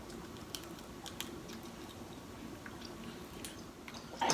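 Faint chewing and mouth smacking while eating snow crab, with a few small scattered clicks.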